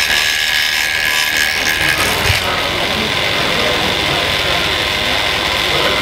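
Scale-model wood chipper running, a steady mechanical whine over a hiss. A single knock comes about two seconds in, after which the whine sits higher.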